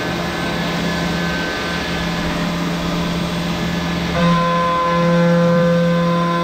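Syil X7 CNC milling machine cutting with a 3/8-inch end mill at about 10,000 RPM under flood coolant. It makes a steady whine over the hiss and splash of coolant spray, and the whine grows louder and sharper about four seconds in.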